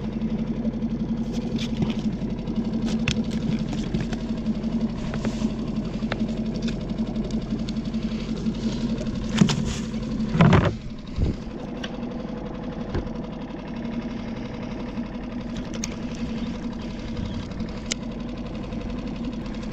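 Small boat's outboard motor idling steadily, with scattered light clicks and a single louder knock about ten seconds in.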